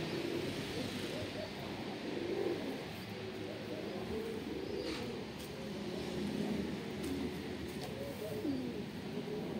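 Several domestic pigeons cooing, low coos overlapping one another.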